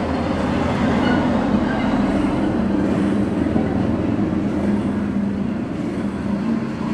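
Steady mechanical rumble with a low hum.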